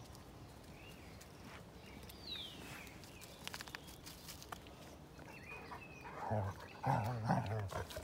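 Small dog growling in low rumbles, starting about six seconds in; this is the loudest sound. Before it, a few short downward-sliding bird chirps and some light rustling clicks.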